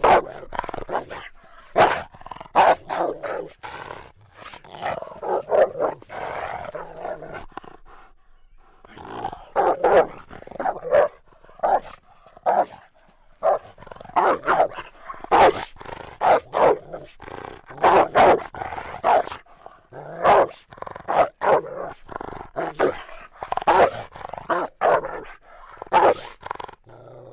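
Himalayan wolf barking: many short, sharp barks in rapid, irregular runs, with a break of about a second and a half about a third of the way in.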